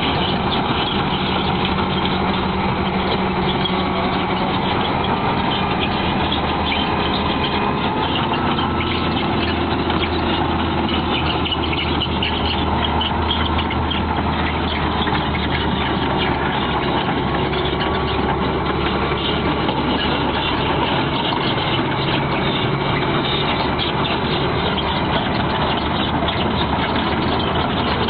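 Heavy diesel engines of earthmoving machines, a large wheel loader and a tracked excavator, running steadily at idle. The low engine note shifts slightly about three-quarters of the way through.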